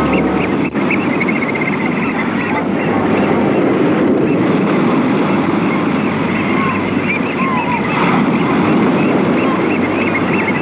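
A flock of small birds chirping and twittering over a steady, loud background rumble.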